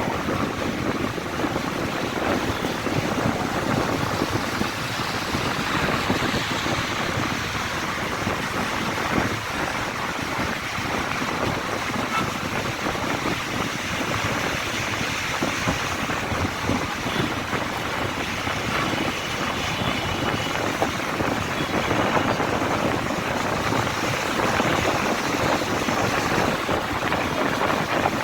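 Steady road traffic noise, a constant wash of passing vehicles with no single one standing out.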